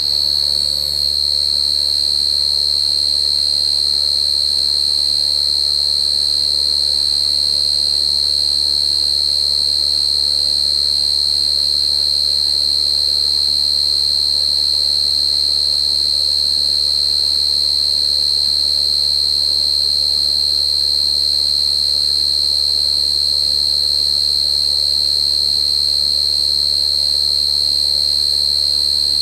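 Cricket calling in one continuous, unbroken high-pitched trill that holds a steady pitch.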